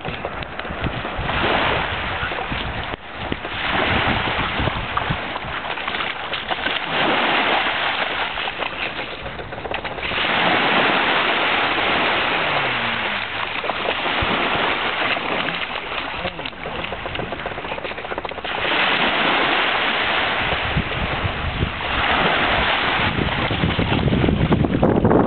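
Small sea waves washing on a sandy shore, mixed with wind on the microphone; the noisy wash swells and fades every few seconds.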